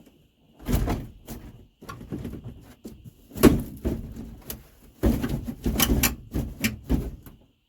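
A run of irregular knocks, clunks and scraping as interior panels are pried loose and handled. The sounds come in clusters: about a second in, in the middle, and a busy stretch near the end.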